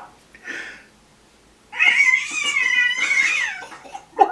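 A cat giving one long, wavering meow of about two seconds, starting a little under halfway through.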